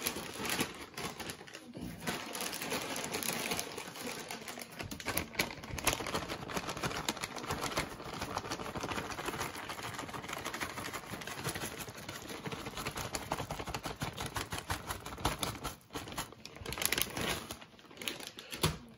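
Plastic bag of shredded cheese crinkling and rustling as the cheese is shaken out onto a pizza, a dense run of small rapid ticks.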